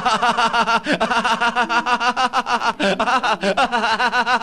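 A person laughing in a fast, unbroken run of short laughs, about eight a second, heard at full clarity rather than down the phone line.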